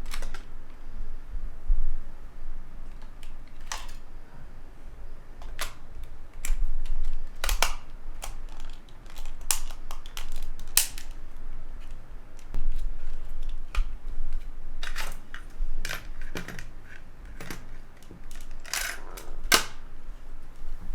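Irregular clicks, taps and handling knocks of a Sony TCM48 cassette player's small plastic casing and parts being handled during reassembly, with a few louder clacks now and then.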